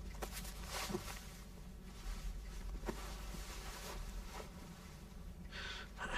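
Faint rustling and shuffling with a few light taps: a person taking off shoes. There is a brief louder rustle near the end.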